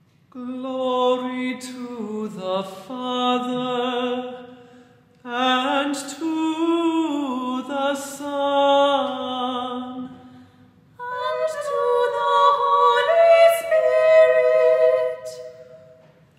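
Unaccompanied vocal ensemble singing a chant in three sustained phrases, with brief breaths between them.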